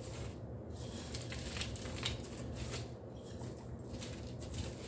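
Soft rustling and faint small clicks of frozen spinach being pushed by hand off a plate into a plastic blender jar, over a low steady hum.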